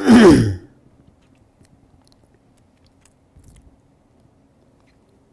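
A man's short, breathy vocal sound, falling in pitch over about half a second, close to a clip-on microphone, then quiet room tone.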